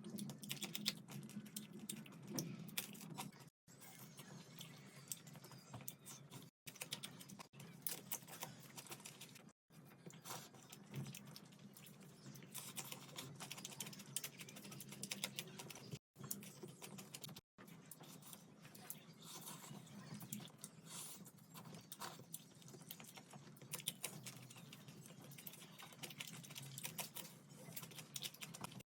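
Close-up eating sounds: rapid soft wet clicks and smacks of chewing fish curry and rice, broken several times by brief drop-outs to silence.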